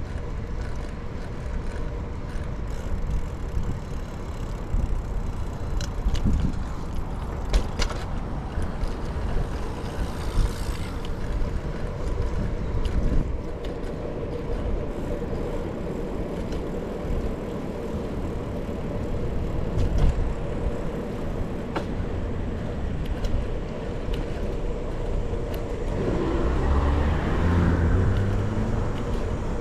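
Steady rumble of road traffic and riding noise. Near the end it swells as a louder vehicle passes.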